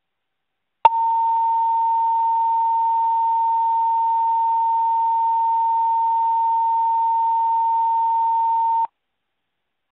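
Fire dispatch paging tone over the radio: a click, then one steady high tone held for about eight seconds before cutting off, alerting a fire station's crew ahead of a dispatch announcement.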